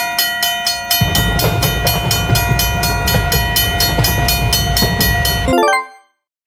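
Railroad crossing alarm ringing rapidly, with a train rumbling past from about a second in. Both stop abruptly near the end, followed by a short falling run of tones.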